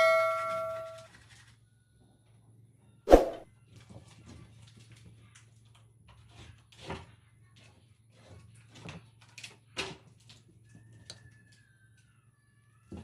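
A struck metal object rings out and fades within about a second. A single sharp thump comes about three seconds in, then scattered light knocks and scrapes of tools and materials being handled, over a steady low hum.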